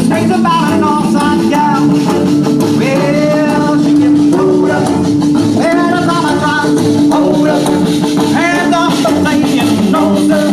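A band playing with a singer, over guitar and drums, the voice sliding between notes above steady held instrument notes.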